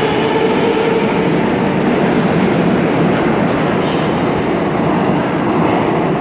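Moscow Metro train running along the platform. A motor whine edges upward and fades about a second in, leaving a steady loud rumble of wheels and cars.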